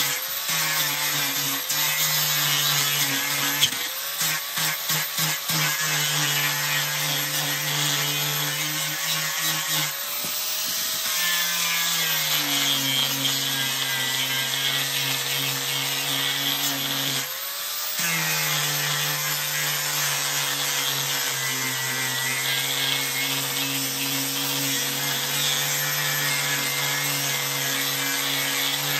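Angle grinder with a sanding disc running steadily against a pallet-wood board, a motor whine over the rub of the disc on the wood. The motor note drops for several seconds in the middle as the disc is pressed harder into the wood, then comes back up, and for a couple of seconds early on it stutters rapidly.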